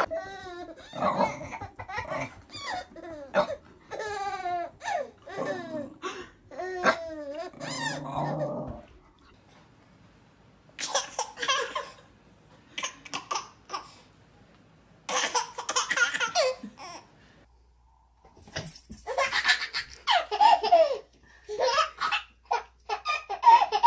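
Babies laughing hard in repeated bursts.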